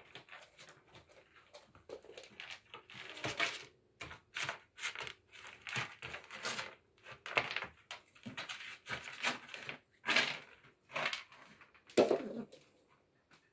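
Irregular scuffling, scratching and light knocks from Oriental kittens playing around sisal-rope scratching posts on a wooden floor, with a few louder scrapes scattered through.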